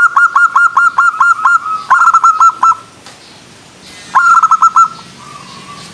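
Zebra dove (perkutut) cooing in quick runs of short, clipped notes, about five a second. One long run ends just under two seconds in, a short burst follows at once, then comes a pause, and another short burst about four seconds in ends with a soft trailing note.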